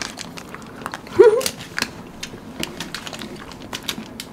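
Scattered small crinkles and clicks of plastic wrappers on Snickers and Mars ice cream bars being handled and eaten. A brief rising hum from one of the eaters about a second in is the loudest sound.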